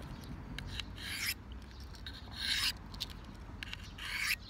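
Knife blade drawn across a Victorinox diamond-coated sharpener, three rasping strokes about a second and a half apart.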